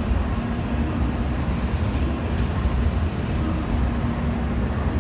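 Steady low rumble of Shinkansen platform ambience as an N700 series train approaches from far down the track, with a faint steady hum and a single light click about two and a half seconds in.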